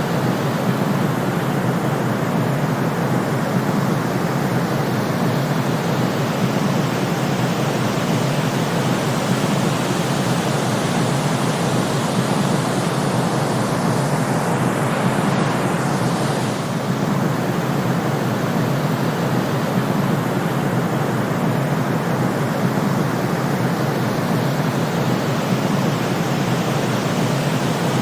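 Steady white noise for sleep: an even, unbroken rush with no rhythm or tones, weighted toward the low-mid range, briefly a little brighter about halfway through.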